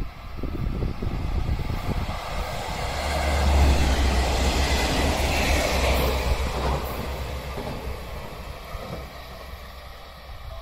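The ○○のはなし tourist train, a KiHa 47 diesel railcar, running through the station. Its engine rumble and wheel noise build to a peak about four seconds in, then fade as it moves away.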